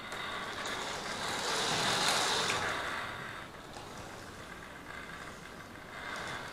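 Model electric train running along the track, its motor and wheels on the rails making a steady whirring rumble that grows louder to a peak about two seconds in, then fades as it moves away.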